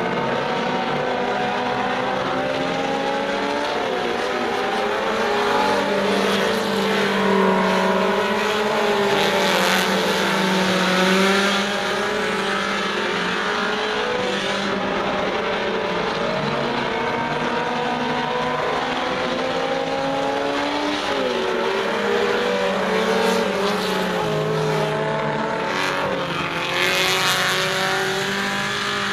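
Several four-cylinder Super Stock dirt-track race cars running hard around the oval, their engine notes rising and falling as they lap. It gets louder several times as cars pass close by.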